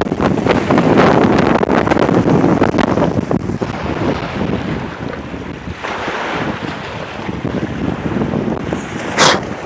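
Strong storm wind buffeting the microphone in uneven gusts, over choppy, wind-driven water slapping along the shore. A brief, loud hiss near the end.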